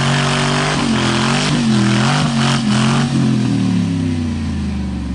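Suzuki off-roader with a V8 engine revved hard under load while climbing a steep muddy bank. The revs waver as the tyres spin and bite, with a few knocks, then fall away after about three seconds.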